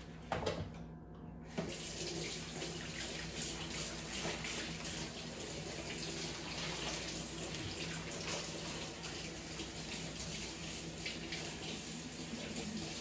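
Kitchen tap running steadily into a sink, turned on about a second and a half in after a short knock.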